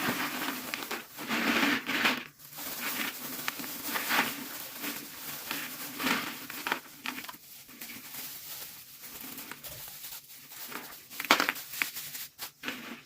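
Irregular crinkling and rustling handling noise, with a few sharper clicks near the end.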